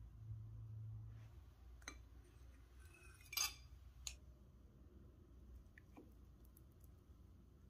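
A few light clinks and taps of kitchenware, the loudest about three and a half seconds in, over near-quiet room tone with a low hum that fades after about a second.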